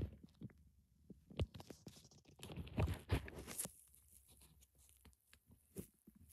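Thin clear plastic packaging crinkling and crackling as it is handled, with scattered clicks and a denser stretch of crackling for about a second in the middle.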